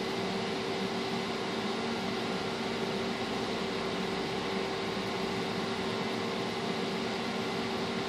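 Biotage Initiator EXP microwave synthesizer running a heating cycle with its magnetron on: a steady whirr of fan noise with a steady hum, unchanging throughout.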